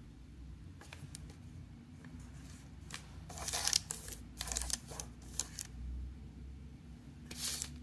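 Crumpled brown paper rustling in several short bursts, with light taps, as coins are set down on it one after another. A few small clicks about a second in.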